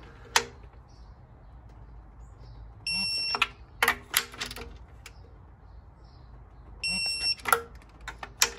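Digital torque wrench beeping twice, each a steady high beep about half a second long about four seconds apart, signalling that an intake manifold bolt has reached the set 21 ft-lb. Sharp clicks from the wrench and socket on the bolts come between the beeps.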